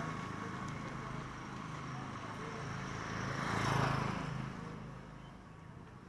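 A motor vehicle passing close by: engine hum and road noise swell up to a peak about four seconds in, then fade away.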